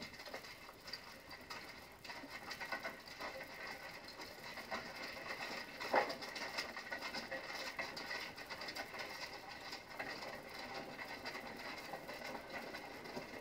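Horse-drawn carriage rattling along: a dense, irregular clatter, with one louder knock about six seconds in.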